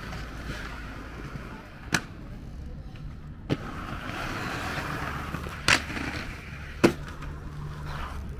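Inline skate wheels rolling on concrete, a steady rumble broken by four sharp clacks of skates hitting the ground, the loudest two in the second half.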